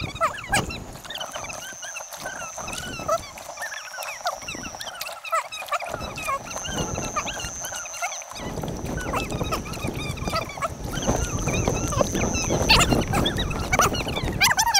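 River-trip sound fast-forwarded about four times: a dense patter of short, high chirps and clicks, the sped-up mix of paddling and outdoor sounds, with a faint high whine that comes and goes.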